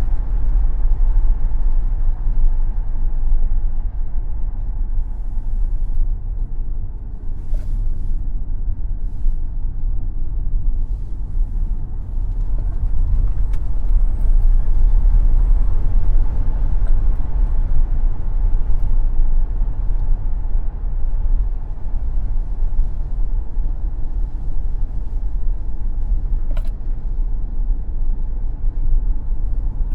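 Tesla Model X electric car being driven on a racetrack: a loud, steady low rumble of tyre and road noise with no engine note.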